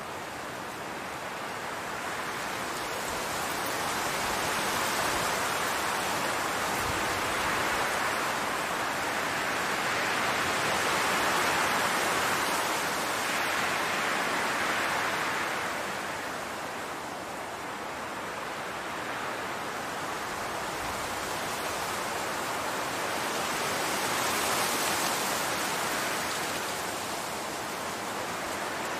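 Wind blowing through a field of tall grass, a steady rushing hiss that swells and eases in slow gusts, with a dip in the middle and another rise near the end.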